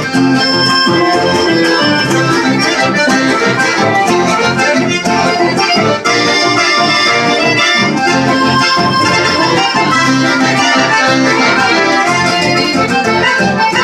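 Accordion playing a chamamé-style folk tune: full sustained chords over a steady, rhythmic bass.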